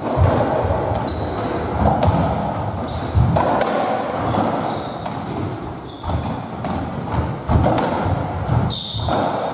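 Squash57 (racketball) rally in a squash court: the ball is struck and smacks off the walls and floor about once a second, each hit echoing around the court. Short high squeaks come from the players' shoes on the wooden floor.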